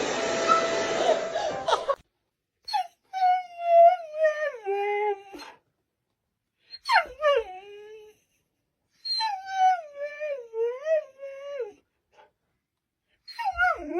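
A dog howling and whining in long wavering calls that slide up and down, in about four bouts separated by silences. In the first two seconds a dense noise plays and cuts off abruptly before the dog starts.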